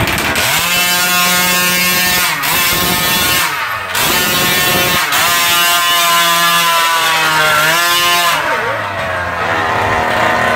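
Small combustion engine of a home-built RC truck running very loud with a buzzy note, held at high revs, dropping off and picking back up a few times, then falling to lower revs near the end. The uploader found the engine far too loud and underpowered on this first run.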